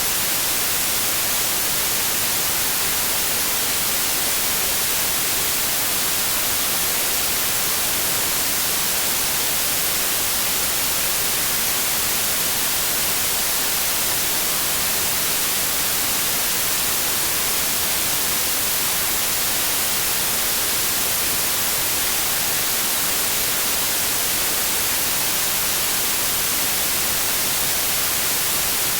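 Steady synthetic white noise: an even, unbroken hiss with flat energy across the spectrum, bright in the highs, with no rhythm or change.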